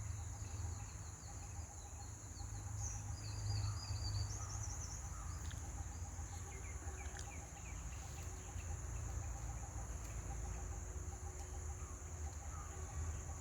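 Small birds chirping, with many short high calls and a few quick trills, mostly in the first half, over a steady low rumble.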